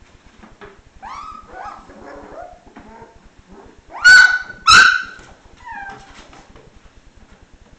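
One-month-old Dalmatian puppies whimpering and yipping in short, high, falling whines. About four and five seconds in, two loud sharp yaps stand out, followed by a couple more brief whines.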